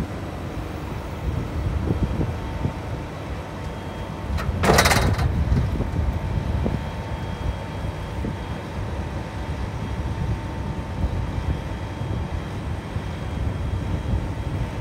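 Claas Jaguar forage harvester's diesel engine running steadily while the hydraulics fold the Orbis 750 header's wings up for transport, with a faint steady whine. A brief loud hiss about five seconds in.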